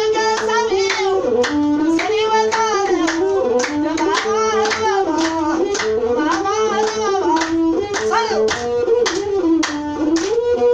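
Ethiopian azmari music: a masinko, the single-string bowed fiddle, plays a melody of held notes joined by slides over steady handclaps, a few claps a second.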